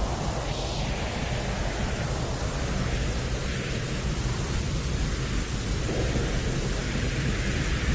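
Continuous white noise for lulling a baby to sleep, meant to resemble the sound heard in the womb: a steady rushing hiss, heavy in the low end, its tone shifting slowly.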